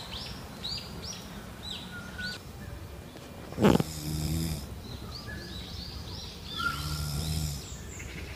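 A sleeping person snoring: two long snores about three seconds apart, the first opening with a sharp snort. Birds chirp repeatedly in the background.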